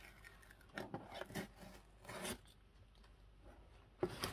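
A paper sticker being picked at with a fingernail and peeled off a cardboard box: a few short, faint scratching and tearing sounds, the loudest near the end.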